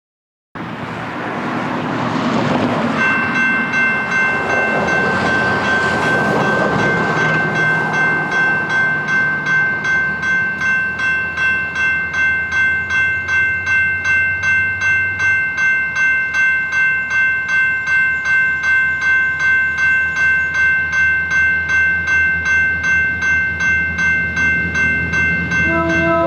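Level-crossing warning bell ringing steadily, about two strikes a second. Near the end a SMART commuter train's horn begins to sound as the train approaches.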